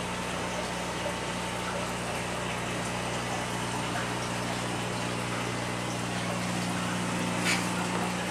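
Aquarium filters and pumps running: a steady low hum under an even wash of moving water, with a light click near the end.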